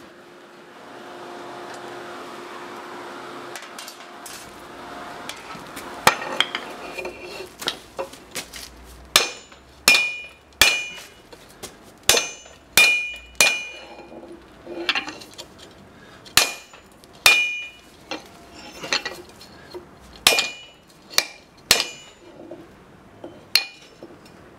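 A forge's electric fan blower whirs steadily for the first few seconds. Then a hand hammer strikes red-hot steel on an anvil, about twenty irregular blows with a ringing clang after many of them, as the bent support plate and then the handle of a post vise are straightened.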